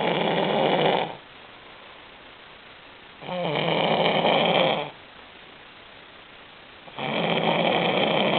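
A sleeping person snoring in a slow, regular rhythm. One snore ends about a second in, a second one lasts about a second and a half, and a third begins near the end.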